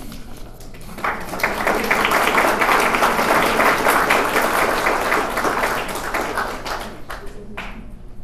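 Audience applauding: it starts about a second in, holds, then dies away near the end.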